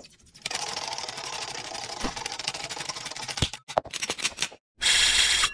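Sound effects of an animated logo intro: a dense clattering rattle for about three seconds, a few separate clicks, then a short, loud whoosh just before the end.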